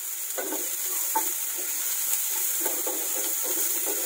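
Chopped onions sizzling in hot oil in a nonstick kadai, with a wooden spatula stirring and scraping them in short, irregular strokes.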